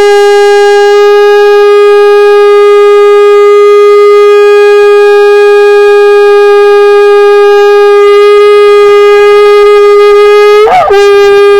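Conch shell (shankh) blown in one long, steady, loud blast. The pitch cracks briefly near the end, then the note carries on.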